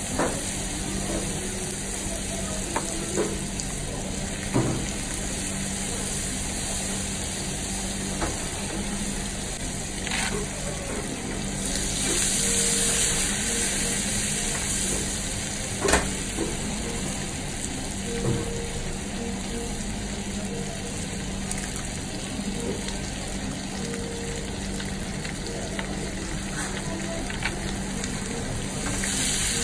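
Butter sizzling and bubbling in a nonstick frying pan over a gas flame, stirred with a silicone spoon that clicks against the pan a few times. The sizzle grows louder about twelve seconds in and again near the end, over a steady low hum.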